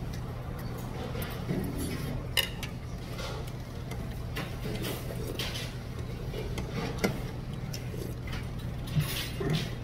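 Metal spoon and chopsticks clinking against a bowl while a man eats mixed rice, with three sharp clinks standing out over softer scraping and eating noises. A steady low hum runs underneath.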